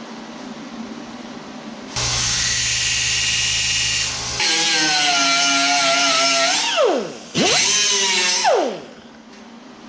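A handheld power tool, drill-like, runs in three bursts: a steady hissing run, then two runs of a wavering whine. Each of the last two winds down with a falling pitch as the trigger is let go.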